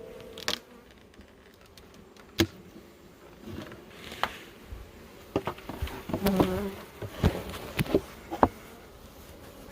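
Honeybees buzzing around an open hive, with a series of sharp clicks and knocks, most of them in the second half.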